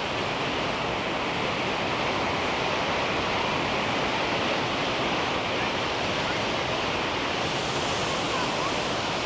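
Waterfall rushing, a steady, powerful roar of falling water.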